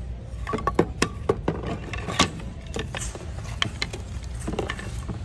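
Small wooden hanging signs and their strings of wooden beads clacking and rattling against each other as they are flipped through by hand, in a run of irregular light knocks over a steady low hum.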